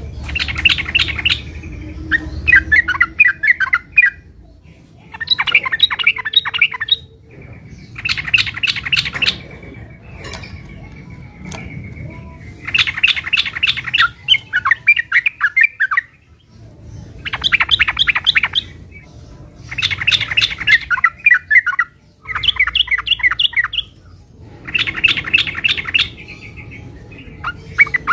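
Sooty-headed bulbul (trucukan) singing in fighting mode: loud bursts of rapid chattering notes, each about a second long, repeated every couple of seconds.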